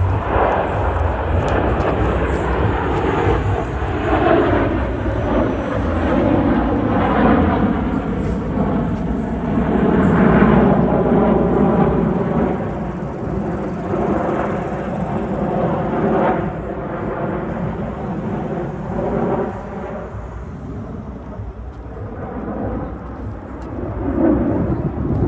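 Aircraft engines droning steadily, their pitch shifting slowly as they move, loudest about ten seconds in and easing off near the end.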